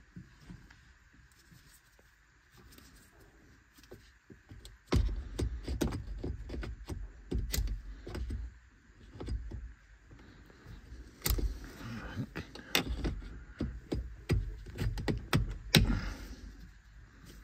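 Irregular clicks and clunks from the Citroen Dispatch's gear lever mechanism as it is worked by hand during a gear cable replacement. They start about five seconds in, and the sharpest knocks come in the second half.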